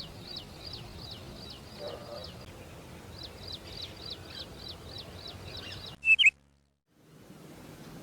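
A bird calling a rapid series of short, falling chirps, about three a second, with a brief pause partway through. About six seconds in comes a louder double chirp, then the sound cuts off abruptly to near silence before faint background noise returns.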